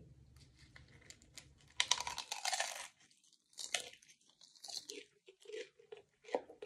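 Hard taco shell bitten into with a loud crunch about two seconds in, then chewed with several more crunches.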